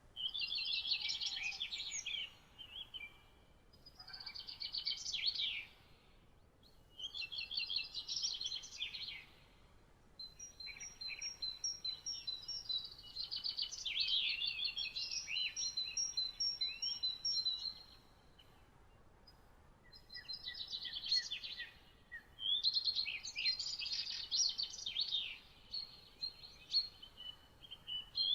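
Songbirds singing: quick, trilling, high-pitched song phrases about two seconds long, repeated every few seconds with short pauses, over a faint steady hiss. In the middle several phrases run together, with a string of repeated high notes.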